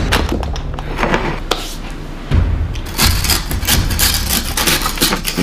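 Knife cutting and scraping through a chilled block of Rice Krispie treat, a dense run of crunching clicks and scrapes, over background music.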